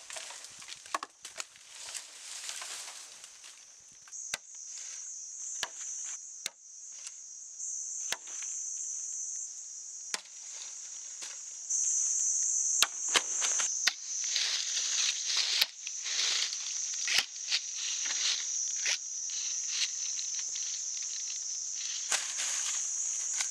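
Machete striking a bamboo pole, single sharp chops every second or two, with rustling of dry leaves and branches. Insects buzz steadily at a high pitch behind it, starting a few seconds in and louder from about halfway.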